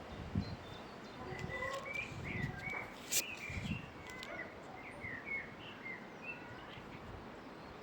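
Small birds chirping in short, quick calls, with low gusts of wind buffeting the microphone now and then and a sharp click about three seconds in.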